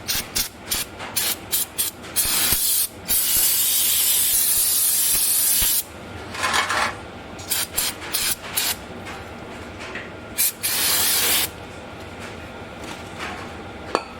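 Aerosol brake cleaner sprayed onto the brake caliper to wash off dripped brake fluid. It comes first as a quick run of short spurts, then as two long blasts of a few seconds each, with more short spurts between them. A sharp click comes near the end.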